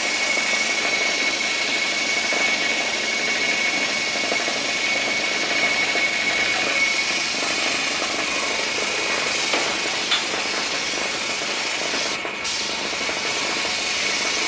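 Paint and putty spraying machine running steadily with a hissing rush and a high whine that fades out about halfway through.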